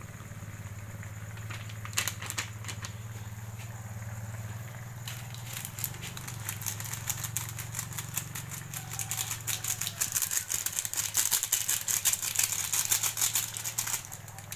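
Seasoning granules rattling in a small sachet shaken over a wok of greens, a dense rapid rattle from about five seconds in that stops near the end. A few clicks come about two seconds in, and a steady low hum runs underneath.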